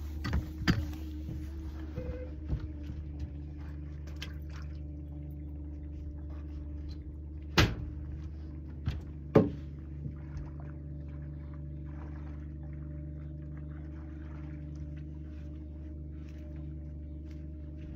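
A boat's motor running steadily at trolling speed, a low hum that holds one pitch. A few sharp knocks sound over it, near the start and, loudest, about seven and a half and nine and a half seconds in.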